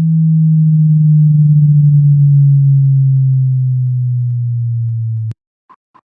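A low electronic tone, made as a sound effect in Audacity, held loud and sliding slowly down in pitch, then cutting off suddenly with a click about five seconds in. Short quick beeps start just after.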